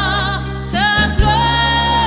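Gospel-style worship song: sung voices with vibrato over bass and a steady beat.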